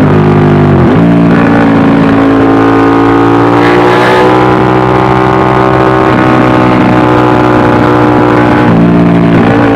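Ducati 1199 Panigale S's 90-degree L-twin engine running under way at highway speed. Its note shifts in pitch about a second in and again near the end, with a brief rush of noise about four seconds in.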